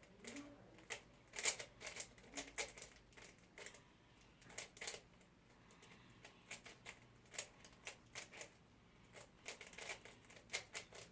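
3x3 Rubik's cube being turned quickly during a speedsolve: faint plastic clicks and clacks from the turning layers, in uneven runs with short pauses between them.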